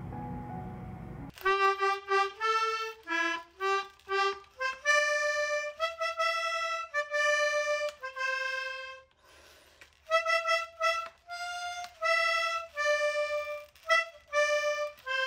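Background music: softer music, then from about a second and a half in a simple melody of separate held notes, with a short pause about two-thirds of the way through.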